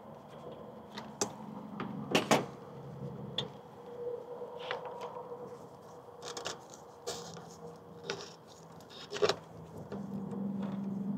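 Irregular clicks and knocks of hands working a spring hose clip and rubber fuel line off the fuel valve nipple on a small engine. The loudest clicks come about 2 seconds in and again near the end, over a faint steady low hum.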